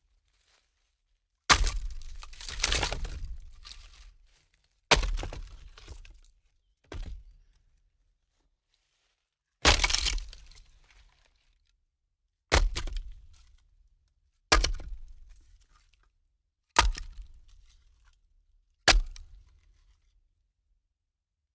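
Firewood logs being stacked: a series of about nine separate wooden knocks and clatters, one to three seconds apart, each dying away within a second or so. The early ones near the start rattle on a little longer as the wood settles.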